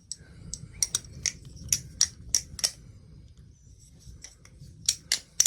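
Balisong trainer being flipped: irregular sharp clacks as the handles swing round the pivot and knock together, a brief lull, then a few more clacks near the end.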